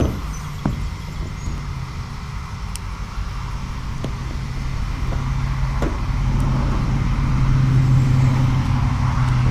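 A steady low engine hum that slowly grows louder, with a few light knocks in the first half.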